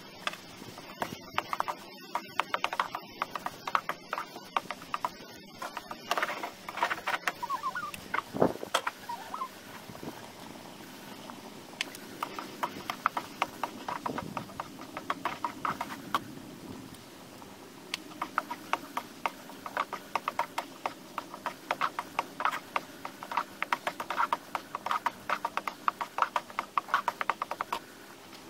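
Wooden spatula scraping and clacking against a steel wok in quick runs of strokes as vegetables are stir-fried, over a steady sizzle from the pan. One heavier thump about a third of the way in.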